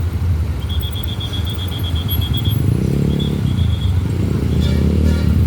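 Large bus engine rumbling close by, swelling briefly about three seconds in, with a rapid high-pitched beeping for a couple of seconds in the first half.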